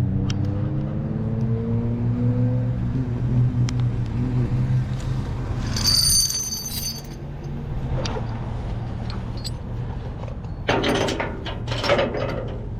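A vehicle engine running and gently rising in pitch as it picks up speed, with a brief high squeal about six seconds in. Near the end come a series of sharp metallic clicks and knocks.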